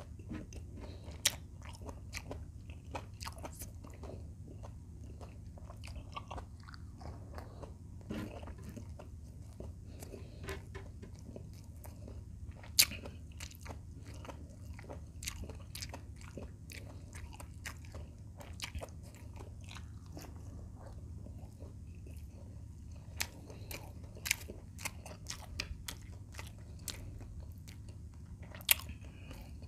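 Close-up mouth sounds of a man chewing fried chicken breast and rice: wet chewing with many small crunches and clicks, and a few louder crunches, over a faint steady low hum.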